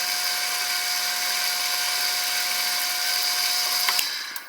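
Milling machine spindle running with a steady whine, drilling a 1/16-inch hole through a small aluminium part; it is switched off about four seconds in and the sound dies away.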